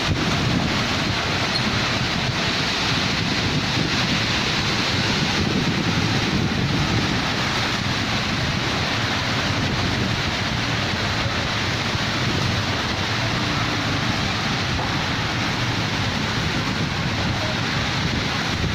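Heavy rain with strong wind: a steady, unbroken rush of noise that keeps the same level throughout.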